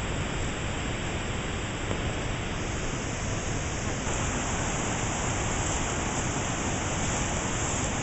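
Steady rush of a waterfall, an even hiss with no pitch that grows a little brighter about halfway through.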